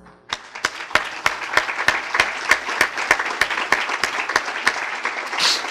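Audience applauding, the clapping starting a fraction of a second in and going on steadily.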